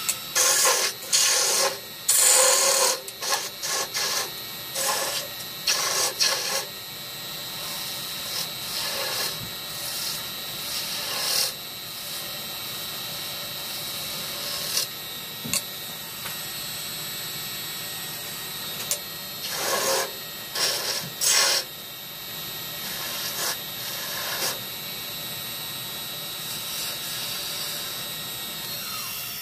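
Rikon wood lathe running with a steady high whine while a hand-held turning tool cuts into the spinning cherry-wood goblet stem, giving loud bursts of scraping cutting noise in the first several seconds and again about twenty seconds in. The sound cuts off at the very end.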